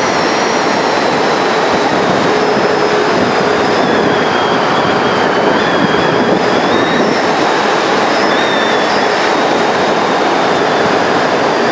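Wind rushing over the microphone of a mountain bike descending an asphalt road at about 60 km/h, with tyre roar, making a loud, steady rush. Faint, wavering whistling tones sit above it.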